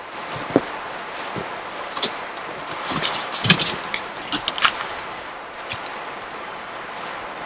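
Clinking and rustling handling noise: a dense run of short, sharp clicks over the first five seconds or so, then sparser, over a steady hiss.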